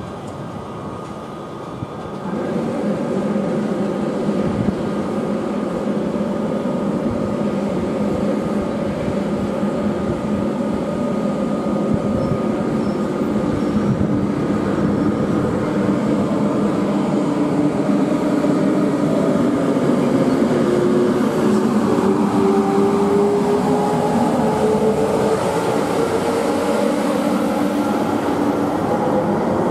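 SJ X2000 high-speed electric train running slowly alongside the platform: a steady electric hum with a whine that rises slowly in pitch over the second half, growing louder as the coaches come level.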